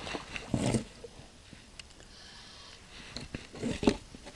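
A man groaning with effort as he bends and reaches out with a landing net: two strained grunting groans, one about half a second in and a louder one near the end.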